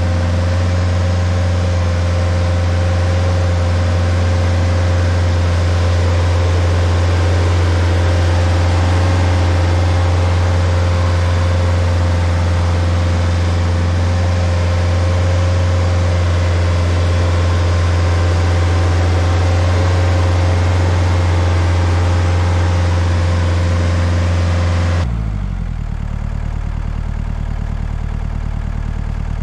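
Rayco RG50 stump grinder running at high speed, a steady low engine drone with a thin whine above it. About four-fifths of the way through it drops abruptly to a lower, quieter running speed, as when the throttle is pulled back.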